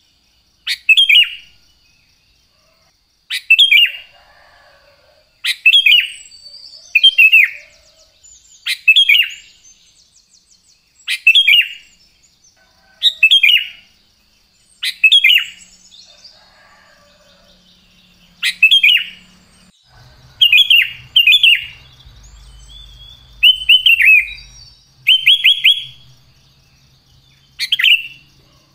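Sooty-headed bulbul (cucak kutilang) singing: loud, short, clear phrases that each fall in pitch, repeated about every two seconds and sometimes in quick pairs. A faint steady high tone runs underneath.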